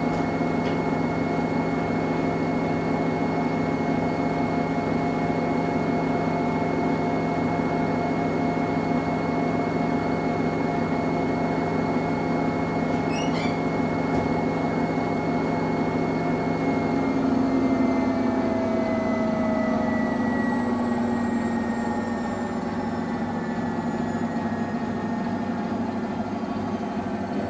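Samsung Eco Bubble washing machine running through its cotton cycle, a steady motor and drum drone with a faint whine. About two-thirds of the way through the low hum drops out and the whine slides down in pitch as the drum slows.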